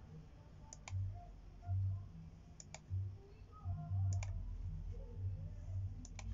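Computer mouse button clicked four times, each a quick press-and-release double click, about every one and a half to two seconds, over an intermittent low hum.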